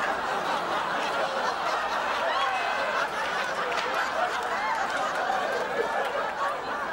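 Sitcom studio audience laughing: many voices in one sustained wave of laughter that holds steady throughout.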